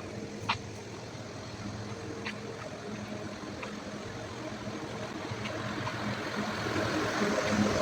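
Bitzer refrigeration compressor running with a steady mechanical hum, growing louder toward the end, with a few light ticks in the first half.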